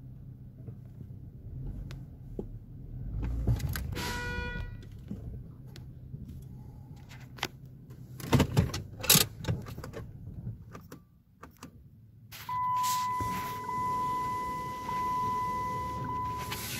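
Mark VII ChoiceWash XT rollover car wash heard from inside the car. Machinery rumbles, a short pitched tone sounds about four seconds in, and a cluster of sharp knocks comes around eight to nine seconds. Near the end, water spray hisses against the car with a steady high whine.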